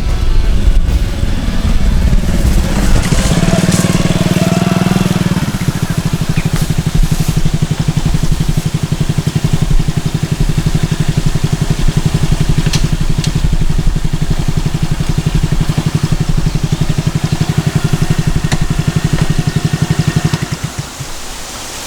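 Honda Super Cub 110's small single-cylinder four-stroke engine running, then idling with an even, rapid low putter, cutting off shortly before the end.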